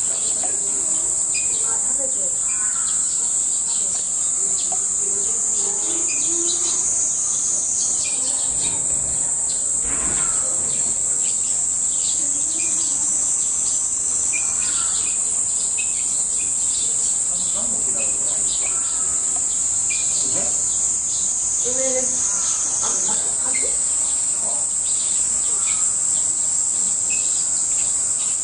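Steady high-pitched chorus of insects, running unbroken, with scattered short bird chirps and faint distant voices beneath it.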